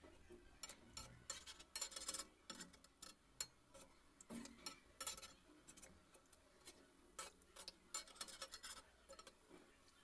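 Pakoras deep-frying in hot oil in a steel kadai: irregular faint crackles and pops, coming in denser clusters as the fritters are stirred with a steel skimmer, its metal clinking against the pan.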